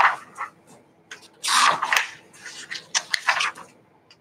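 Paper booklet being handled and its pages turned: a series of irregular rustles, the loudest about a second and a half in.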